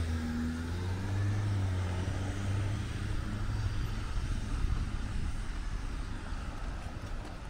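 A car's engine passing and pulling away, its low rumble fading over several seconds.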